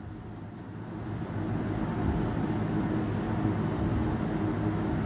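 Steady low hum of a portable evaporative air cooler's fan running.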